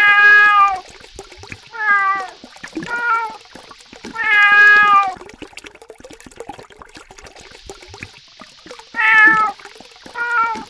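Domestic cat meowing six times, some calls long and drawn out and others short, with a faint trickle of tap water between them.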